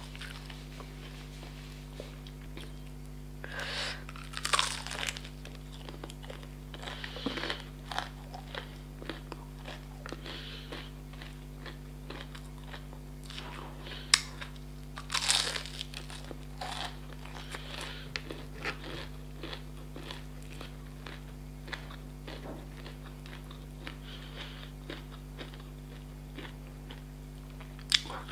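Close-up crunchy bites into a KFC fried chicken piece's crisp coating, then chewing, with the loudest crunches about four seconds in and again around fifteen seconds. A steady low electrical hum runs underneath.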